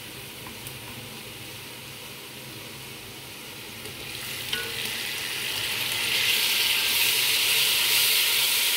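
Onions frying in oil in a metal pot, sizzling quietly while a wooden spoon stirs them. About four seconds in, chopped tomatoes tip into the hot oil with a light clink on the pot, and the sizzle grows much louder and stays loud as they are stirred.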